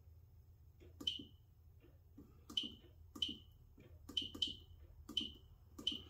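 Keypad of an Advanced MxPro 5 fire alarm control panel being pressed: about seven key presses at irregular intervals, each a click followed by a short high beep from the panel's key sounder.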